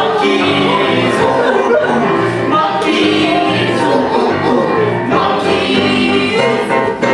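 Live band music with several voices singing together over a steady bass line.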